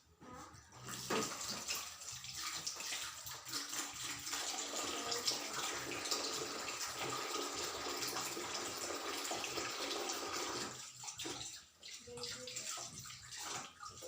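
Tap water running and splashing over hands being washed at a sink, starting about a second in and breaking up into intermittent splashes near the end.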